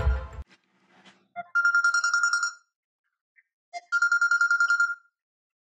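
A phone ringing twice with an electronic trilling ring: each ring lasts about a second and pulses rapidly on one steady pitch, with a short pause between the rings. Background music fades out just at the start.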